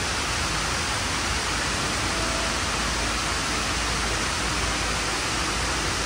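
Steady rush of the Dubai Mall's indoor waterfall, water falling down a wall several storeys high.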